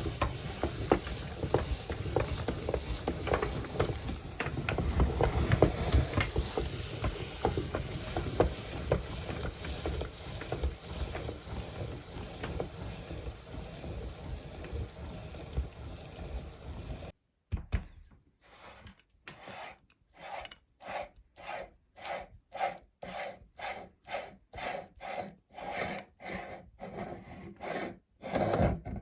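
Meat grinder crushing frozen strawberries: a continuous grinding crunch full of small cracks. After about 17 seconds it drops away suddenly into separate rhythmic scraping strokes, about one and a half a second.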